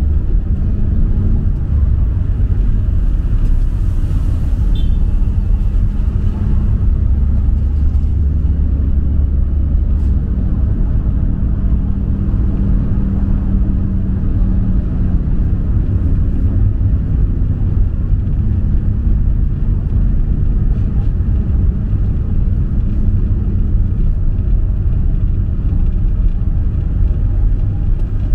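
Steady deep vehicle rumble that goes on without a break, with a faint drifting engine hum.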